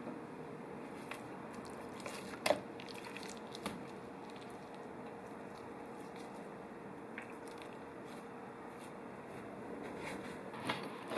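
Faint steady hiss with a few sparse clicks and light knocks of food being handled during cooking preparation. The strongest knock comes about two and a half seconds in, and a quick cluster of clicks comes near the end.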